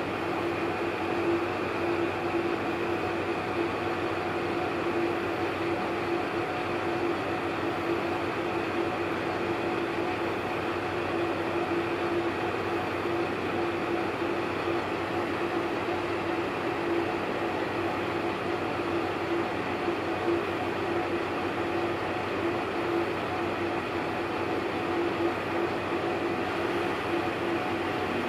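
Shimabara Railway KiHa 2500A diesel railcar idling while stationary, a steady hum with one constant tone and no change in engine speed.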